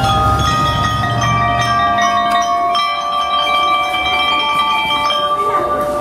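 Marching band's metal-bar glockenspiels playing a melody in long, ringing notes. A low drum rumble sounds under them for the first two seconds.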